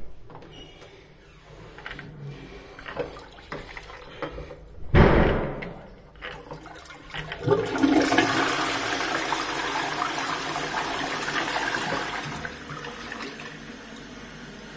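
Toilet with a concealed cistern and dual-flush push plate flushing. A loud short burst comes about five seconds in, then water rushes steadily into the bowl for about five seconds and tapers off.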